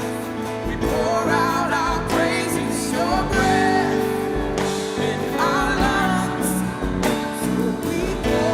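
Live worship music: a band with guitar plays steady sustained chords while a singer's voice carries the melody.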